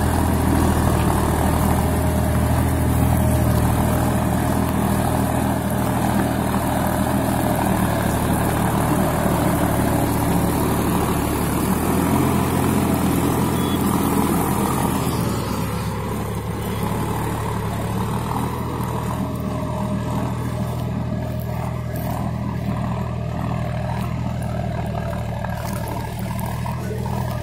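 Solis 5015 50 hp tractor's diesel engine running steadily under load while pulling a three-bottom mouldboard plough. The engine grows a little quieter about halfway through.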